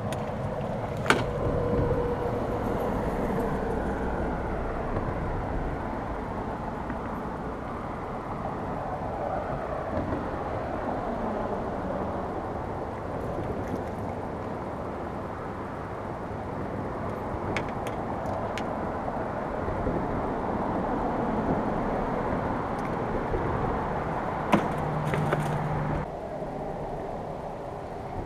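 A steady rushing noise with a few sharp knocks scattered through it; the noise drops a little near the end.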